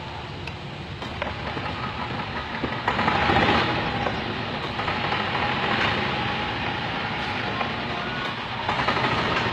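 A newly repaired golf cart being driven along a road, running steadily with its road noise, getting louder about three seconds in.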